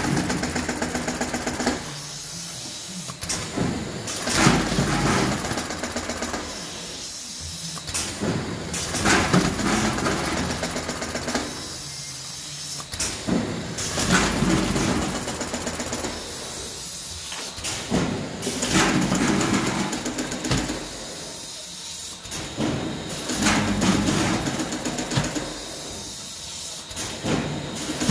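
SORPAC FW-01/5k plastic bag packing machine running through its bagging cycle: a rapid mechanical clatter that comes back about every four to five seconds, with short sharp clacks and hisses between.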